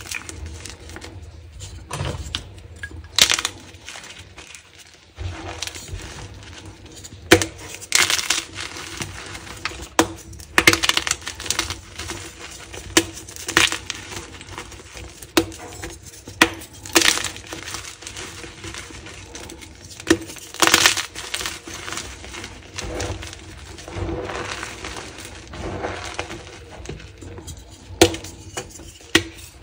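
Dyed gym chalk blocks crushed and crumbled in bare hands: irregular sharp cracks as pieces snap, with gritty crunching and crumbling between them.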